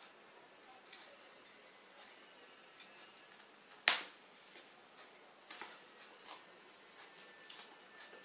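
Scattered light clicks and taps of dishes and food being handled at a plated meal, with one sharp click about four seconds in.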